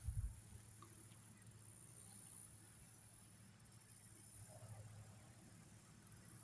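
Faint, steady high-pitched chirring of crickets and other insects, the late-summer insect chorus, with a soft low thump right at the start.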